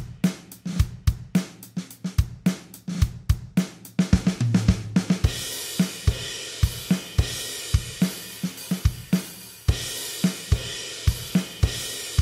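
Programmed drum kit (GarageBand's SoCal kit) playing a rock beat with no other instruments. For about the first third it is a tight kick, snare and closed hi-hat pattern. Then a cymbal crash brings in a washier groove with cymbals ringing over kick and snare, and another crash comes a little after the middle.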